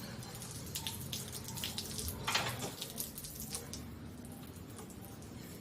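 Water running and dripping, with irregular small splashes; the loudest splash comes about two and a half seconds in.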